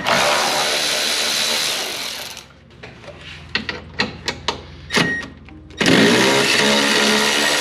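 Cordless electric ratchet spinning a 10 mm socket to back out bolts, its motor running in two long bursts with a few sharp clicks between them.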